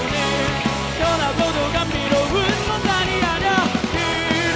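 Live rock band playing: a vocalist sings a sliding, held melody into a microphone over electric guitars, bass guitar, keyboard and a drum kit keeping a steady beat.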